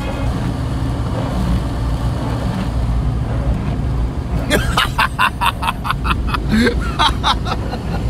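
Steady drone of engine and road noise inside a Mk1 Volkswagen Golf's cabin at motorway speed. From about halfway through, a man laughs in quick, rapid bursts over it.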